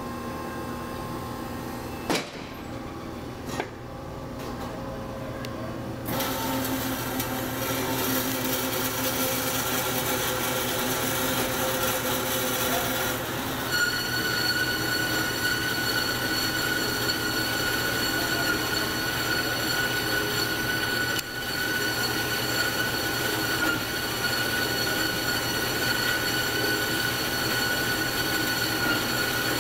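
1997 Marvel MV460 APC vertical band saw cutting through a bundle of rectangular metal tubing: the blade runs in the cut with a steady hiss, with a single knock about two seconds in and the hiss getting louder about six seconds in. From about thirteen seconds a high-pitched metallic squeal joins and holds steady.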